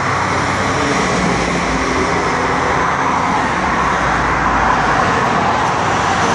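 Steady road traffic noise from passing vehicles, with a deeper low hum swelling in the middle and easing off near the end.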